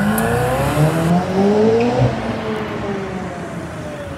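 McLaren Senna's twin-turbo V8 accelerating hard away from the kerb, its pitch rising for about two seconds, then dropping and fading as the car pulls away down the street.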